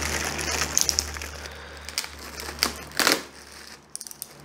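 Plastic wrapping on new bongo drums crinkling as it is cut and peeled off with a knife, with a louder rustle about three seconds in.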